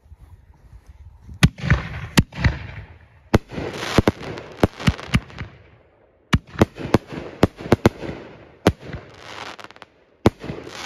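Tank Buster consumer canister shells, double and triple breaks, launching from mortar tubes and bursting overhead: about fifteen sharp booms at irregular intervals, many with a rushing tail after them.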